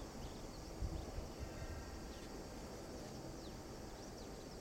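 Outdoor background noise: a steady low rumble with a few faint, short bird chirps and a brief faint whistle-like tone about halfway through.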